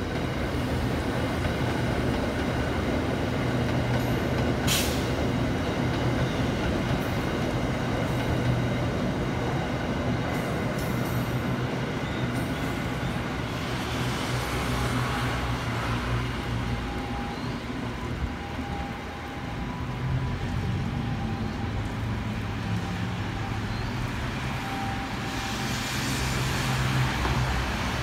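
Hitachi-built electric multiple-unit commuter train running along the tracks and pulling away toward the station, with steady wheel-on-rail noise and motor whine and a single sharp clack about five seconds in. Faint steady tones come in from about the middle as it slows to enter the platform.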